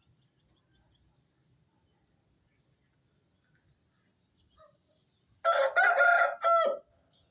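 An Aseel rooster crows once near the end, a loud crow of about a second and a half whose last note falls in pitch. A steady, fast, high cricket trill runs underneath.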